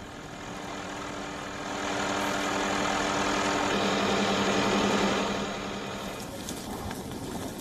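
Helicopter noise heard from the aircraft: a steady engine hum over a rushing wash, swelling in the middle. The hum stops about six seconds in, leaving quieter noise with a few clicks.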